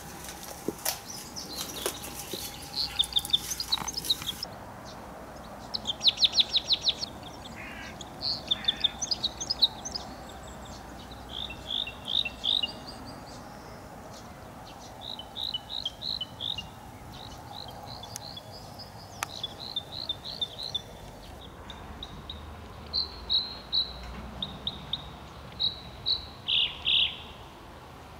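Small birds chirping and singing in short, quick repeated phrases of high notes, over a quiet outdoor background.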